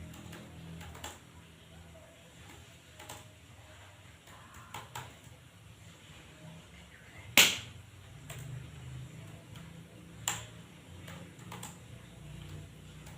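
Scattered clicks of a computer keyboard and mouse, a few irregular taps with one sharp loud click about halfway through and another a few seconds later, over a faint low hum.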